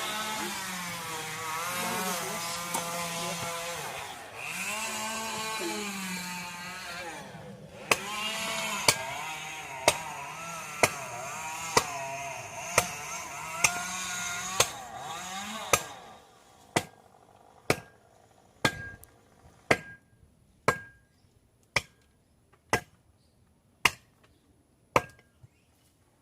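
A small motor runs, its pitch rising and falling, and cuts out about 16 seconds in. From about halfway through, sharp knocks come about once a second, like blows with a tool, and keep going after the motor stops.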